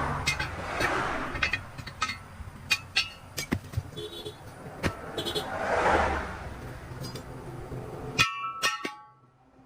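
Irregular metal knocks and clinks, some ringing briefly, over a background noise that swells up and fades away twice. Near the end the sound drops off suddenly.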